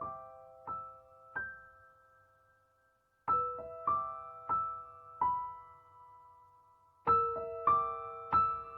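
Soft intro music: a slow piano melody of single struck notes, each ringing and fading away, played in short phrases of four or five notes with a pause of about two seconds between phrases.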